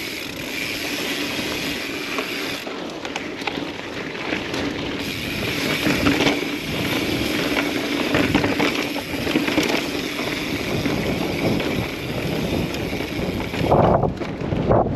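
Mountain bike riding over sandstone trail: tyres rolling and rattling on rock, with a steady low buzz under the noise and louder bumps and rumbles near the end.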